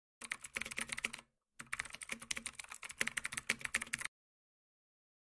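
Computer keyboard typing sound effect: a quick run of key clicks, a short pause about a second in, then more rapid clicks that stop about four seconds in.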